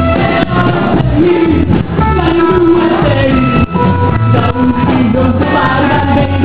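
Rockabilly band music with drums and a bending melody line, possibly sung.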